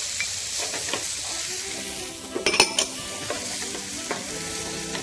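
Chopped onions and tomatoes sizzling in olive oil in a nonstick sauté pan while a wooden spoon stirs them, with a steady hiss and scattered light clicks. A cluster of sharper knocks comes about two and a half seconds in.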